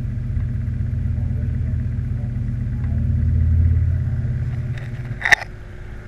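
Hunter FD209S box fan's electric motor running with a steady low hum that swells, then fades about five seconds in, followed by a single sharp click.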